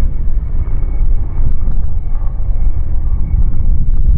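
Aerospatiale SA330 Puma twin-turbine helicopter flying past: a steady low rotor rumble with a faint, steady high turbine whine over it.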